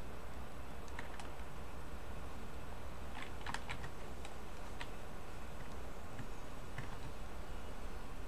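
Computer keyboard keys clicking a few at a time, with a quick run of several keystrokes about three and a half seconds in, over a steady low hum.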